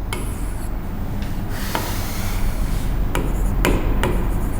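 Writing strokes on a surface: a stretch of scraping and several sharp taps, over a steady low electrical hum.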